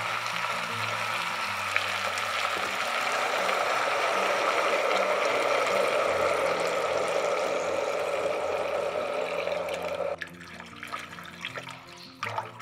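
Water running from a tap in a steady stream, stopping abruptly about ten seconds in, followed by a few light clicks. Soft background music plays underneath.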